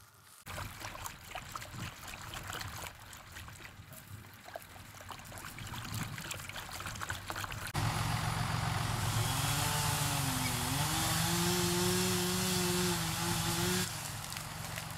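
Light crackling and rustling as flour is poured from its bag into a plastic bowl. About eight seconds in, a chainsaw engine starts running loudly. Its pitch dips and climbs back, as if under cutting load, and it cuts off suddenly about six seconds later.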